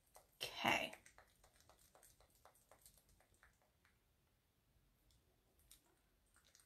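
Faint, quick clicking and scraping of a craft tool stirring thick chalk paste in a small container, about three or four light taps a second, with one louder short rustle about half a second in. The tapping stops after about three and a half seconds.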